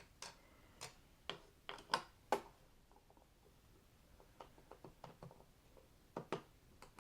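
Light plastic clicks and taps from handling a small wireless mouse and its USB dongle. About six sharper clicks come in the first two and a half seconds, then fainter ones, with a close pair near the end.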